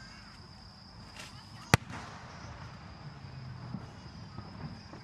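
A single sharp firework bang about two seconds in, over a steady high-pitched tone.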